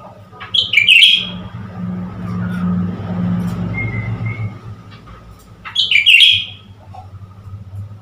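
Blue-winged leafbird giving two short, loud bursts of harsh chattering notes, about five seconds apart. Between them a low engine hum swells and fades, as of a vehicle passing.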